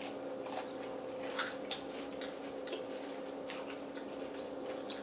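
Close-up chewing and biting of crunchy Flamin' Hot Cheeto-coated fried food: scattered crisp crunches and mouth sounds, over a steady low hum.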